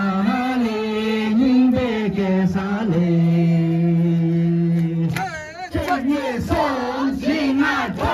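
A group of dancers singing a Tibetan gorshey circle-dance song together. Low voices hold a long note, and after about five and a half seconds higher voices take up the tune with sliding pitch.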